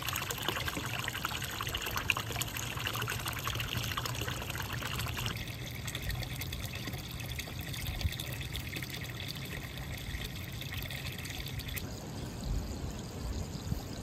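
Water pouring from a pipe spout into a shallow trough, a steady splashing trickle that shifts in tone twice, at about five seconds and near twelve seconds.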